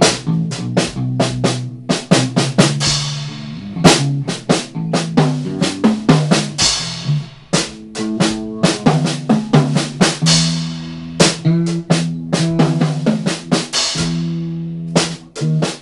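Drum kit playing a funky jazz groove, with quick snare and bass drum hits and a cymbal crash every few seconds, over held low bass guitar notes.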